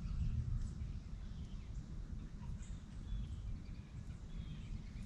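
Outdoor background: a steady low rumble, like wind on the microphone, with a few faint bird chirps.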